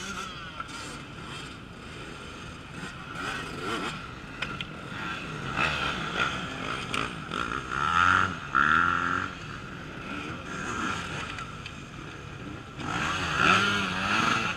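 Off-road enduro motorcycle engines revving in bursts as riders pass, pitch rising and falling, loudest about eight seconds in and again near the end.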